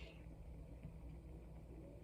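Near silence: a low steady hum of room tone with a few faint ticks.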